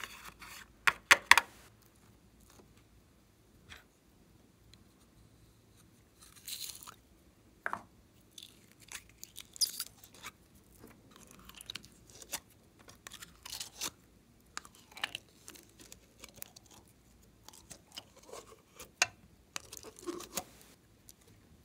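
Scattered short scrapes, clicks and rustles from hands working slime ingredients: a plastic spatula scraping pressed makeup out of a compact palette, with a quick run of sharp clicks about a second in, then softer scrapes, crinkles and taps as glittery jelly is handled over a glass bowl.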